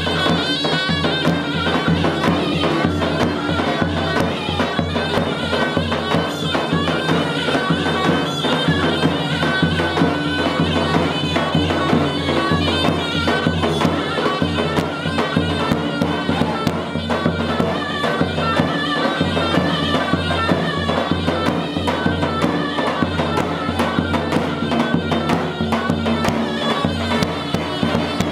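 Turkish folk dance music for a halay line dance: a loud wind-instrument melody over a steady low drone.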